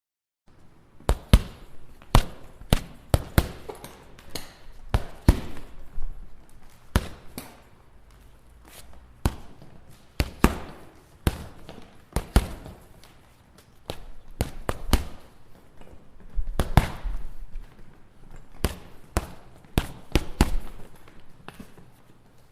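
Boxing punches landing: a string of sharp thuds at irregular intervals, some thrown in quick two- and three-punch combinations, starting about half a second in.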